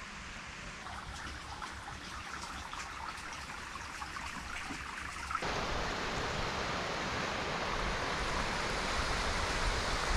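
Water trickling with faint irregular drips, then, after an abrupt change about five seconds in, a small shallow stream running steadily over rocks between snowbanks, a louder even rush.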